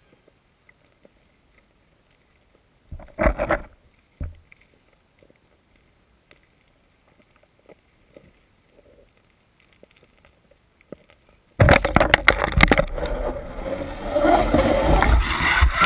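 Underwater camera: mostly faint, with a few scattered small knocks and a short scraping burst about three seconds in. Then, suddenly, loud water sloshing and gurgling with a heavy rumbling handling noise for the last four seconds as the camera is pulled up through the water toward the surface.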